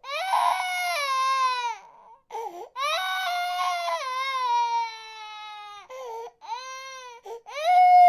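A baby crying in long wails, each sliding down in pitch, broken by short catching breaths. A fresh, loud wail starts near the end.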